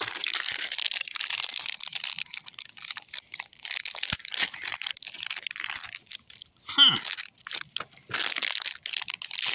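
Popped popcorn crunching and rustling as it and plastic toy figures are pushed around by hand close to the microphone, in bursts with short gaps. A brief vocal sound about seven seconds in.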